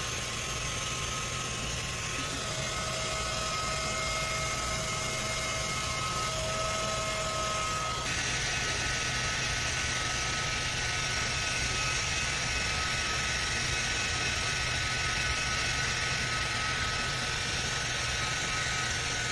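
Hand-held hair dryer blowing steadily while drying a whippet's coat after a bath; its sound turns brighter about eight seconds in.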